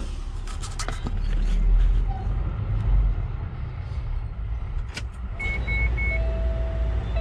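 Key clicking and jangling in a Kenworth T800's ignition switch as it is turned on, over a low rumble. About five seconds in the dash powers up with three short high beeps, then a steady warning buzzer tone.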